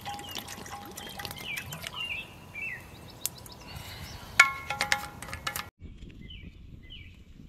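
Water poured from a bottle into a metal mess-kit pot, with birds chirping around it. About four and a half seconds in come a few sharp metallic clinks that ring briefly. The sound then cuts off suddenly, leaving only birdsong.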